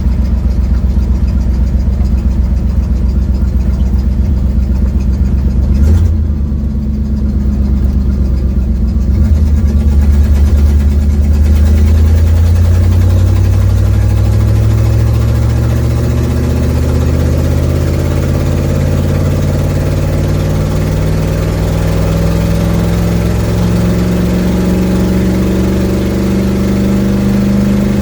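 1972 Ford Mustang engine with a leaking exhaust, heard from inside the cabin while driving: a steady low drone, a short click about six seconds in, then the engine note climbs slowly and steadily as the car accelerates.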